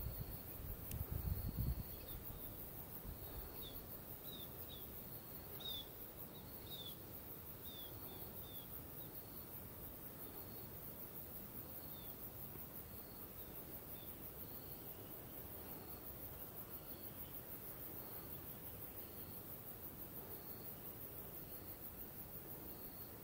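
Faint outdoor ambience with a high, pulsing insect drone, a short high note repeating about once a second, and a few brief falling chirps between about four and nine seconds in. A low rumble sits under the first two seconds.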